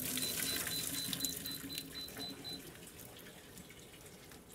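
Hot cooking water poured from a stainless steel saucepan through a mesh sieve into a stainless steel sink, splashing as the boiled watermelon rind is drained. The splashing is strongest in the first second and a half and tapers off by about three seconds in.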